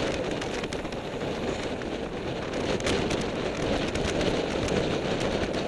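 Steady wind rushing over the microphone of a camera riding along with a group of road cyclists at speed, mixed with tyre and road noise from the bikes, with a few faint clicks.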